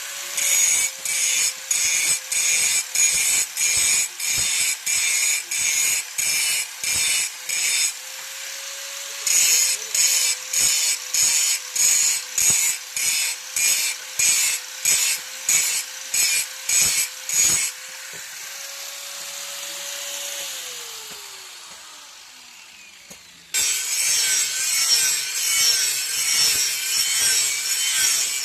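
A steel boti blade being sharpened against a motor-driven grinding wheel, in rasping strokes about two a second over the wheel's steady hum. About two-thirds through, the hum falls in pitch and fades as the wheel winds down. Near the end a continuous rasping grind starts suddenly.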